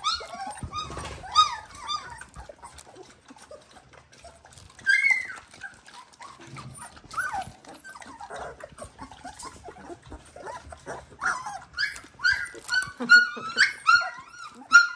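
Three-week-old Dalmatian puppies whimpering and squeaking: short, high-pitched rising-and-falling cries, one louder cry about five seconds in, then coming thick and fast in the last few seconds.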